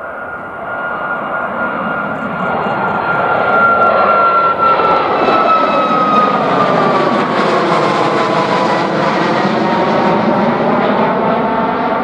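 Jet engines of a Boeing 737 MAX (CFM LEAP-1B turbofans) at takeoff thrust as the airliner climbs out: a loud rushing noise with a high whine that slides down in pitch as it passes. It grows louder over the first few seconds, then holds steady.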